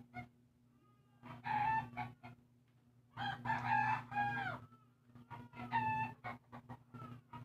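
Repeated animal calls: short pitched calls about every two seconds and one longer call with a bending, falling pitch about three to four seconds in, over a steady low hum.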